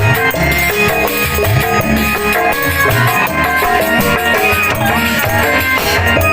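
Balinese joged bumbung music: a bamboo gamelan ensemble playing many short struck notes over a steady drum beat.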